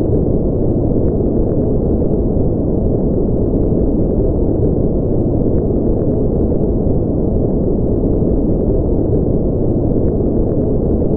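Steady, deep rumbling noise that holds an even level throughout, with a few faint scattered clicks.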